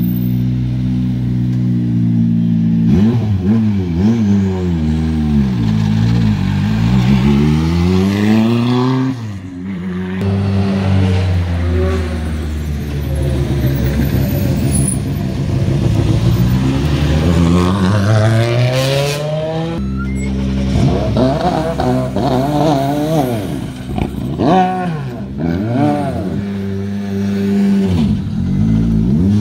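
Rally2 cars' turbocharged four-cylinder engines driving past one after another at road-section pace: a steady engine note at first, then each car pulling away with its engine pitch rising, dropping at a gear change and rising again.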